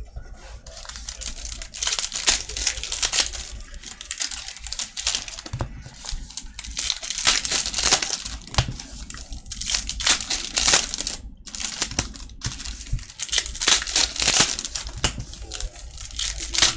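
Foil trading-card pack wrappers crinkling and tearing as packs are ripped open by hand, in a run of crackly bursts that come and go.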